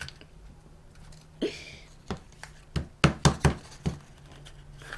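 A brief rustle of toy packaging, then a quick run of sharp knocks on a tabletop, about six in two seconds, the middle ones loudest.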